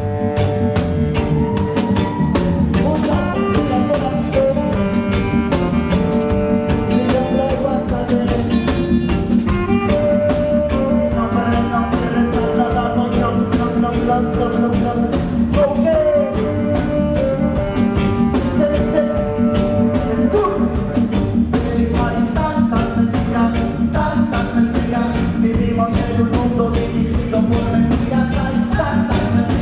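Live reggae band playing with a steady drum beat, bass and keyboard, a tenor saxophone melody and a singer's voice through the PA.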